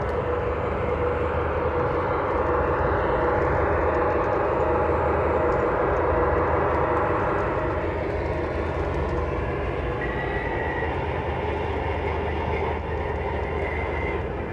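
Onboard Proto-Sound 3 sound system of an MTH O-gauge Alco RS-11 model locomotive playing its diesel engine drone as the locomotive moves. The engine note swells, then eases off about eight seconds in, with two short high squeals in the second half.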